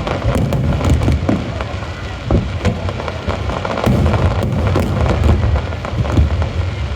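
Fireworks display: a dense, continuous barrage of bangs and crackling over a deep rumble.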